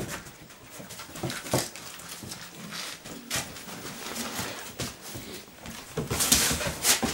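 Groenendael Belgian Shepherd dogs moving about close by, with short scattered dog sounds and scuffling, and a louder burst of noisy scuffling about six seconds in.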